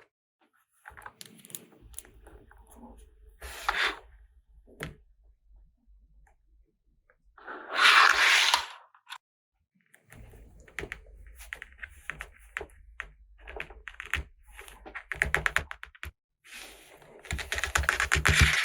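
Small plastic toy pieces and packaging handled: irregular clicks and taps, with a louder rustling burst about eight seconds in and another near the end.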